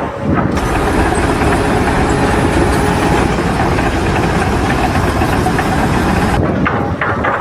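A vehicle or machine engine running steadily, with a dense rattling mechanical noise.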